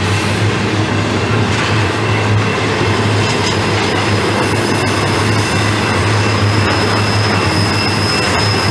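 Double-stack intermodal container cars rolling past on a curve, a steady rumble of steel wheels on rail. A high, steady wheel squeal from flanges rubbing the rail through the curve comes up about three and a half seconds in and holds.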